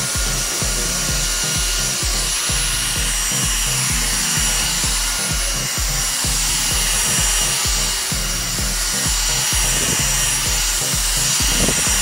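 Dyson V6 Motorhead+ cordless stick vacuum running with its motorized roller head on a hardwood floor and rug: a steady high whine over rushing air, with a fast low pulsing underneath.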